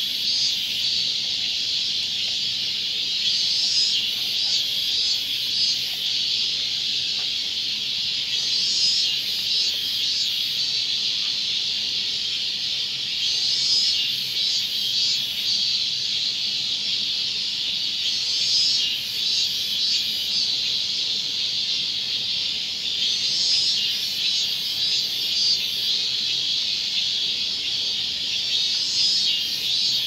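Robust cicada (minmin-zemi, Hyalessa maculaticollis) singing: a steady, loud, high-pitched buzzing that swells louder about every five seconds.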